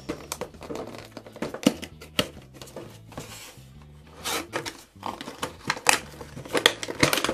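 A cardboard toy box being opened by hand: the end flap pulled open and the packaging rubbed and scraped, with sharp clicks and small rips throughout. Quiet background music plays underneath.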